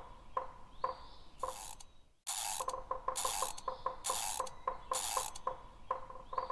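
Mechanical sound effect for a gear logo: a run of sharp ratchet-like clicks, each with a short metallic ring, broken by five short bursts of hiss about a second apart.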